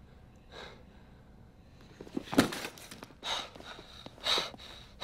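A man breathing hard in sharp, noisy gasps, about one a second, starting about two seconds in.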